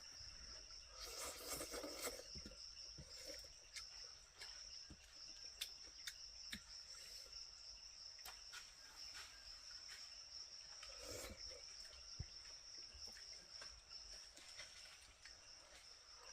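Insects chirring in one steady high-pitched drone, faint against the forest background, with scattered small clicks and rustles. Two louder rustles come, one about a second in and one near eleven seconds.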